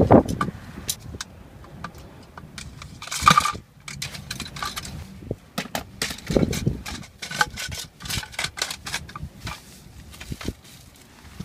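Sections of a multi-piece travel fishing rod clicking and knocking together as they are handled and packed into a hard rod tube, with a short scraping rustle about three seconds in and a couple of dull thuds.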